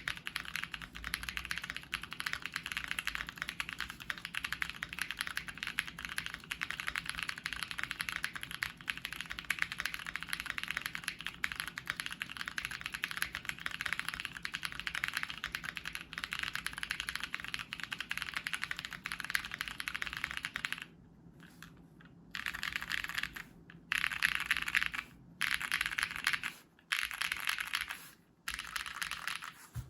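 Fast, continuous typing on a Keychron Q2 mechanical keyboard with lubed Rosso Corsa switches, a polycarbonate plate and PE foam mod: a dense stream of key clacks. About two-thirds of the way through, the typing breaks into short bursts with brief pauses between them.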